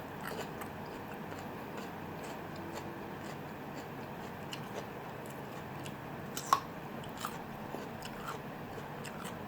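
A person chewing and biting food close to the microphone, with scattered small clicks and crunches and one sharper crunch about six and a half seconds in.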